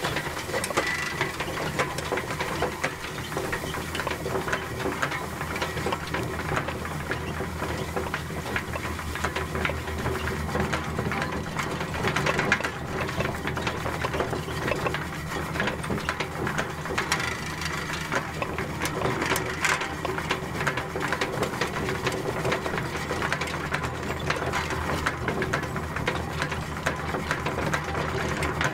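Horse-drawn McCormick-International F-PB 1 hay tedder, probably from 1953, turning hay: a steady, fast clatter of many small ticks from its gears and forks.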